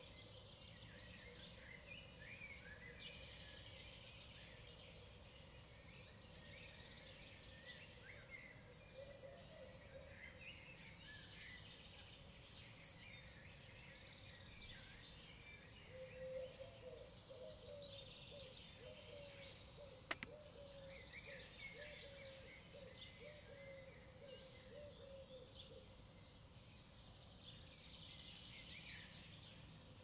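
Faint chirping and calling of small songbirds. About halfway through comes a run of lower, rapid calls lasting several seconds, and a single sharp click comes a little later.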